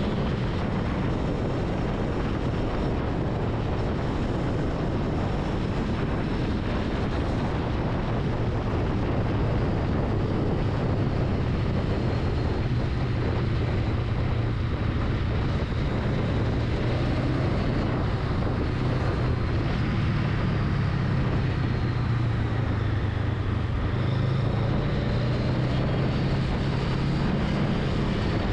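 Honda Rebel 500's parallel-twin engine running with a steady low drone, its pitch wavering slightly.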